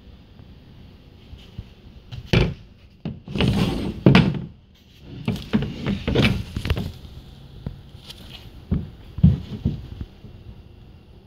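Handling noise: a run of irregular knocks, thumps and scraping, with a sharp knock about two seconds in, a longer scraping stretch just after, a cluster of knocks in the middle and a few more near the end.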